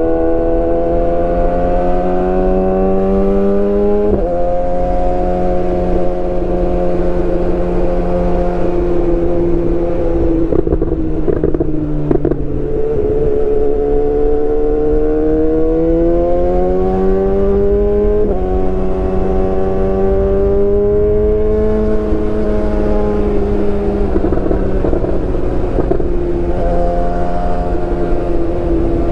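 BMW S1000R inline-four engine running loud under load. Its pitch climbs steadily and drops sharply three times, as the bike shifts up through the gears.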